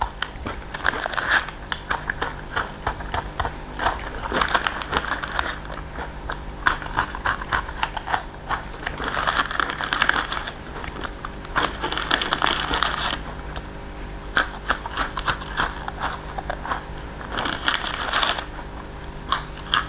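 Crisp potato sticks being crunched and chewed close to the microphone, with a foil snack wrapper crinkling in several louder stretches as it is handled.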